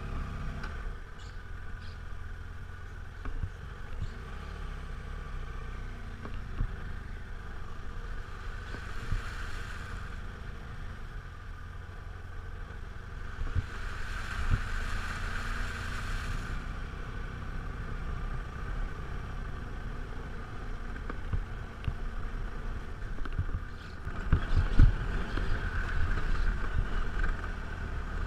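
BMW dual-sport motorcycle running steadily at low speed on a rough dirt track, with wind rumble on the microphone and knocks from the bumps, loudest near the end. Twice there is a hiss of spray as the tyres cut through puddles: briefly about a third of the way in, and for a few seconds around the middle.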